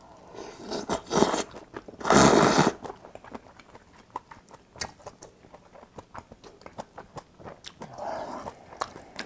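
Close-miked slurping of a big mouthful of glass noodles and ham from army stew, two slurps with the louder one about two seconds in, followed by wet chewing with many small mouth clicks.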